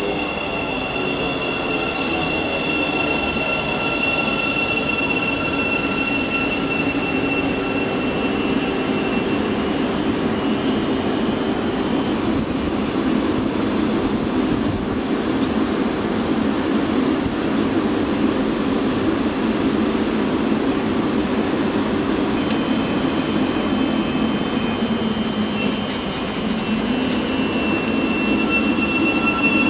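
Thameslink Class 700 electric multiple unit braking to a stop with a falling electric whine. It stands humming at the platform, then its high whine returns and rises as it starts to pull away near the end.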